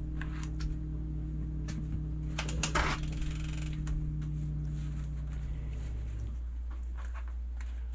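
Paper towels rustling and small taps on a plastic cutting board as rinsed fish fillets are pressed dry, with a short burst of paper crinkling about three seconds in. Under it runs a steady low hum that stops about six seconds in.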